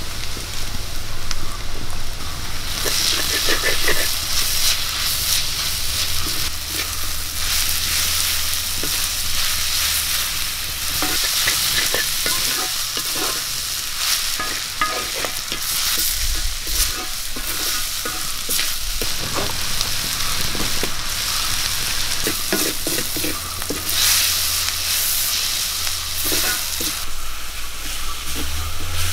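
Sliced onions and green chillies frying in oil in a black pan, sizzling while a spatula stirs and scrapes through them. The sizzle grows fuller about three seconds in.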